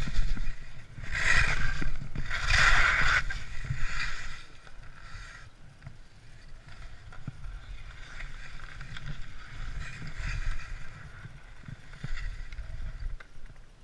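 Skis scraping over icy, hard-packed snow through several turns, loudest in two hissing scrapes in the first few seconds, with wind rumbling on the microphone throughout.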